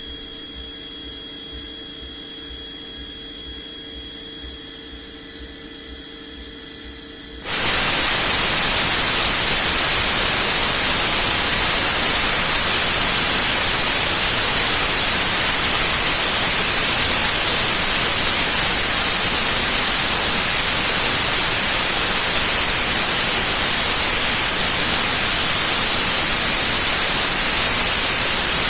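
A faint steady hum with a high whine, then a sudden loud, even hiss like static about seven seconds in, which holds steady.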